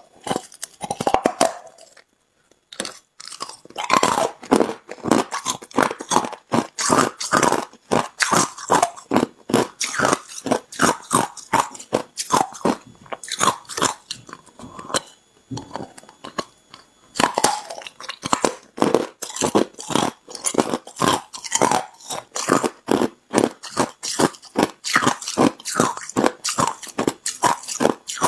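Hard ice being bitten and chewed: rapid, irregular crunching and cracking, with a short pause a couple of seconds in.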